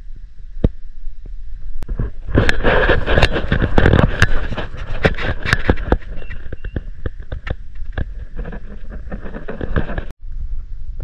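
Footsteps crunching and crackling through dry grass, twigs and scrub, with wind rumbling on the microphone. The crackling is loudest from about two to six seconds in.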